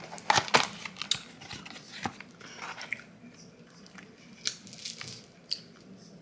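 Close-up eating sounds: biting and chewing fast food, with sharp crackles from handling the paper food container. The loudest burst of crackling comes about half a second in, then single clicks every second or so.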